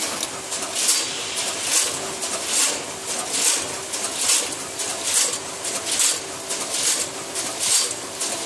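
Savema SVM 32 intermittent vertical form-fill-seal packaging machine running its bag cycle, with a short hissing burst repeating evenly about once a second.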